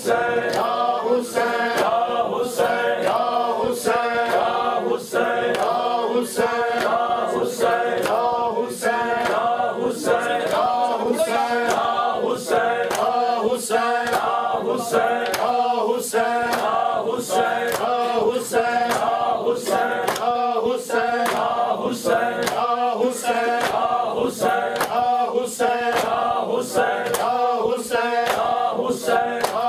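Men chanting a mourning lament (noha) in unison, with the sharp slaps of open hands beating on bare chests (matam) keeping a steady beat, about one and a half slaps a second.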